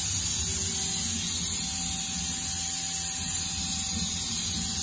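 Mazak QTN-200MY CNC turning center running, a steady hiss with a faint high whine underneath.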